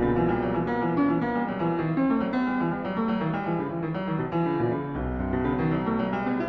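Background piano music, a steady stream of quick notes over low bass notes.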